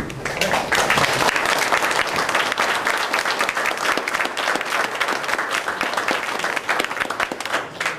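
Audience applauding, the clapping swelling up within the first second and carrying on steadily.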